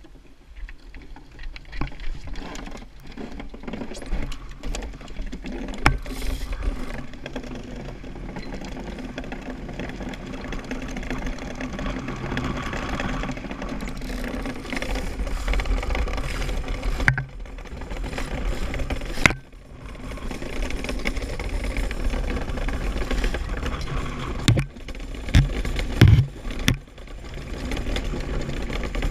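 DN iceboat under sail, its steel runners rumbling and hissing over the lake ice, growing louder about halfway through, with occasional sharp knocks.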